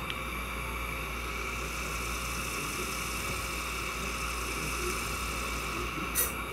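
Steady high-pitched whir of dental equipment during root canal instrumentation, holding one pitch throughout, with a single short click near the end.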